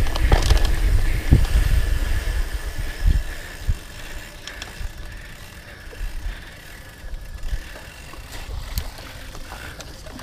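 Hardtail mountain bike ridden over a bumpy dirt trail: wind rumbling on the microphone, with tyre noise and the frame and chain rattling and knocking over bumps. It is loudest for the first few seconds at speed, then eases to a lower rumble with scattered clicks and knocks as the bike slows.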